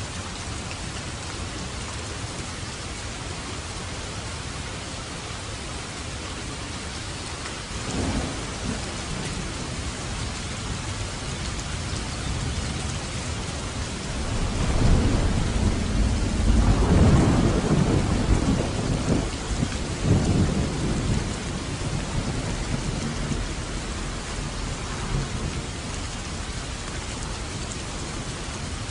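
Steady rain falling, with a rumble of thunder: a brief one about eight seconds in, then a longer, louder roll from about fourteen to twenty-two seconds that slowly fades.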